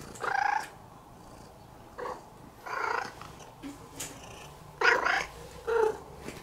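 Domestic cat vocalising: about five short calls spread over a few seconds, the loudest about five seconds in.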